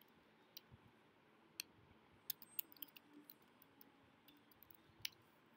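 Faint, irregular clicks of typing on a laptop keyboard, a dozen or so keystrokes spread unevenly, with the loudest one about five seconds in.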